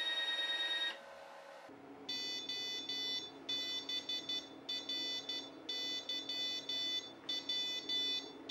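Stepper motor of a pickup coil winder whining as it spins the bobbin, cutting off about a second in as the winding stops. From about two seconds in, an electronic beeper sounds rapid same-pitch beeps in groups roughly a second apart, over a low steady hum.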